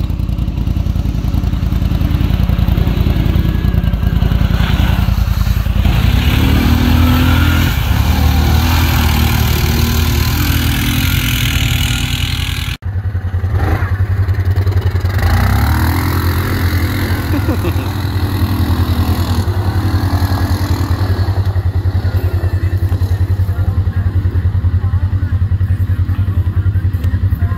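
ATV engine running and revving as the machine is ridden through mud, its pitch rising and falling with the throttle. The sound cuts out for an instant about halfway through, then the engine runs on.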